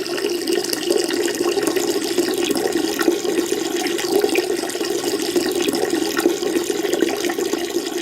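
A peeing sound effect: a steady stream of liquid splashing into toilet water.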